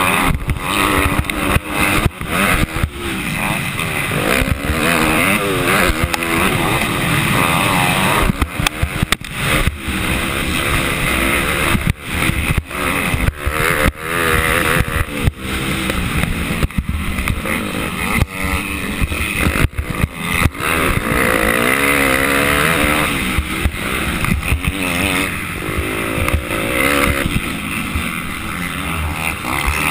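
Motocross bike engine heard from the rider's helmet, revving up and falling back again and again as the rider accelerates, shifts and rolls off around the track.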